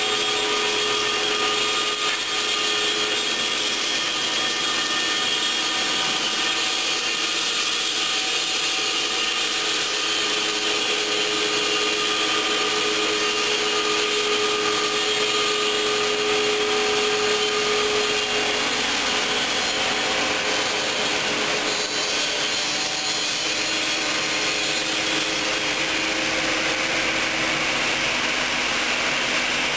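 A stone bridge saw's water-cooled diamond disc cuts through a stone slab, a steady grinding hiss carrying a humming tone from the machine. About two-thirds of the way through, the hum fades and the hiss grows brighter.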